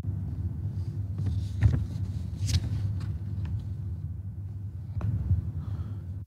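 Muffled outdoor sound of a street march: a steady low rumble with a few faint, scattered knocks and noises over it.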